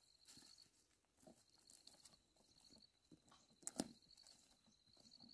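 Near silence: faint footsteps on dry, burnt ground and stubble, with one sharp snap a little under four seconds in.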